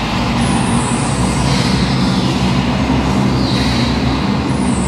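Harsh electronic noise music: a dense, loud wall of noise over a thrumming low drone, with high hissing bands that slide down in pitch, one sweep starting about half a second in and another near the end.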